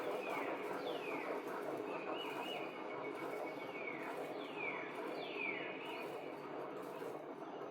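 A bird calling outdoors-style: a series of short whistles, each sliding downward in pitch, two near the start and three more in the second half, with a brief warbling whistle between them, over a steady low hiss.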